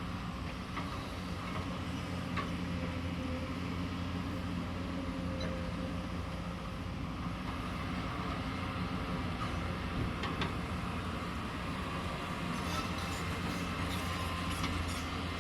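Excavator diesel engine running steadily, with a few short metallic knocks, several of them near the end.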